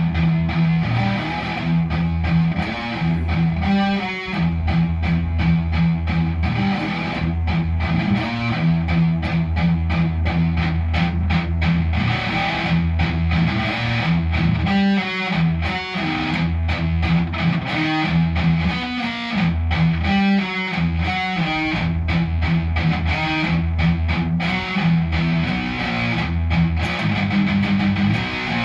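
Epiphone Les Paul–style electric guitar played through an amplifier with distortion: fast-picked heavy-metal riffs on the low strings, with quick single-note runs.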